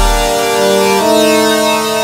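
Electronic music: held synthesizer chords that change to a new chord about a second in, with the deep bass dropping out right at the start.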